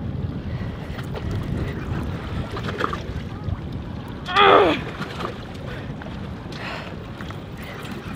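Steady wind buffeting the microphone over water slapping a small boat's hull, with one short strained groan from the angler, falling in pitch, about halfway through.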